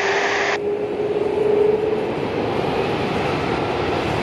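Jet airliner engine noise: a steady rushing, with a single tone that rises slightly and fades out about two seconds in. Air-traffic-control radio hiss cuts off abruptly just over half a second in.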